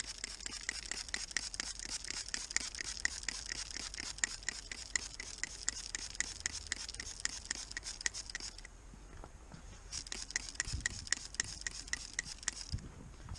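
Hand trigger spray bottle pumped rapidly, squirting windshield washer de-icer fluid onto truck window glass: a quick, even run of short hissing squirts, each with the click of the trigger. It pauses for about a second about two-thirds of the way through, then starts again.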